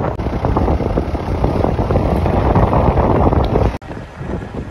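Wind buffeting the microphone: a loud, rough rush of noise that breaks off abruptly about four seconds in and then goes on more quietly.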